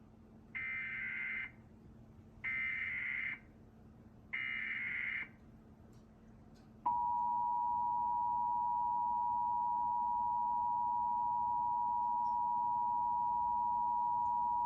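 Emergency Alert System tones: three short bursts of SAME digital header data, about a second each with roughly a second between them. After a pause comes the EAS two-tone attention signal, two tones sounding together and held steady for about eight seconds before it cuts off.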